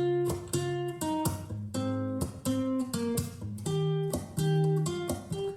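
Guitar intro of a pop song, separate picked acoustic guitar notes a few per second over a bass line, played back through Quadral Ascent 650 three-way floorstanding speakers in a listening test.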